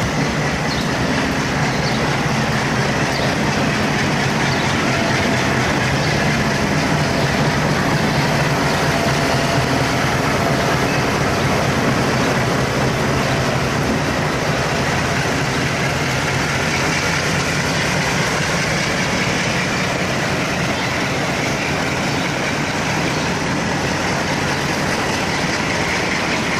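WDM2 diesel locomotive's 16-cylinder ALCo engine running steadily close by, with a high thin whine over it.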